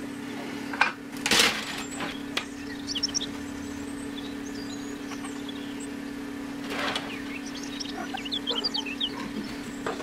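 Rustling and scraping handling noises from copper tubing being bent and fitted by hand, loudest about a second and a half in and again near seven seconds. Under them runs a steady low hum, with scattered faint bird chirps.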